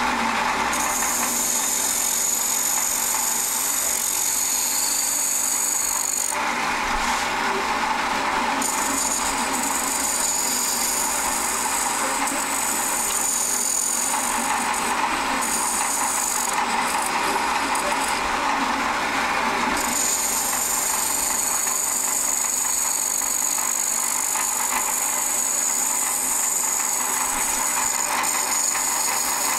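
Wood lathe spinning a glued-up stacked bowl while a carbide-insert tool cuts the outside, a steady cutting hiss that shifts in tone every few seconds as the tool moves along the wood.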